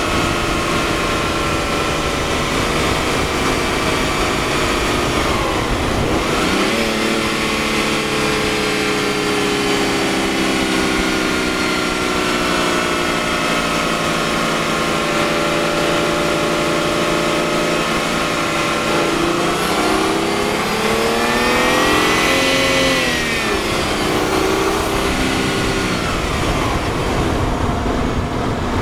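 Twin-turbo BMW engine, picked up by a microphone in the engine bay while the car is driven. The note eases down slowly and breaks off briefly about six seconds in, then holds steady. Around twenty seconds in the revs climb quickly and drop back a few seconds later.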